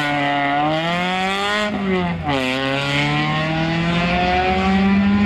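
Peugeot 206 rally car's engine accelerating hard. Its pitch climbs, drops sharply at a gear change about two seconds in, then climbs steadily again as the car pulls away.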